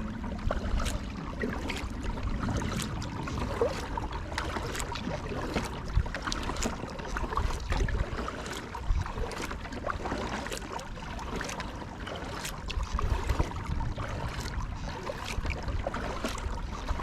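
Kayak paddle dipping into canal water in an even stroke, a splash or drip about once a second over the water's steady wash.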